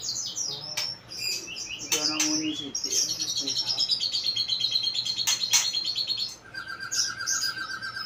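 White-rumped shama (murai batu) singing in full voice: quick runs of high, rapidly repeated notes, a long even trill in the middle, then a lower, steady trill near the end, with a few sharp clicks.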